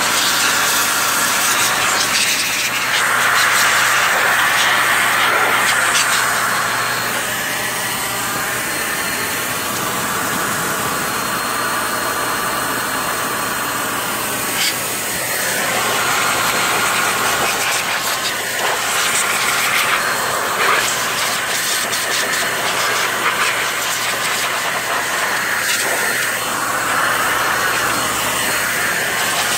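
DataVac electric duster running without a break, its motor and air jet making a steady loud hiss as it blows dust out of an open CRT monitor. The tone of the hiss shifts as the nozzle is moved over the chassis and the case.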